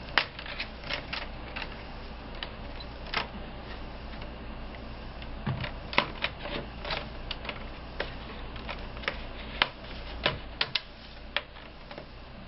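Sharp plastic clicks and snaps at uneven intervals as the display bezel of a Dell Latitude D830 laptop is worked loose from its clips with fingers and a small screwdriver.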